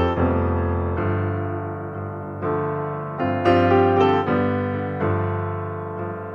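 Solo piano music: single notes and chords struck about once a second, each left to ring and fade.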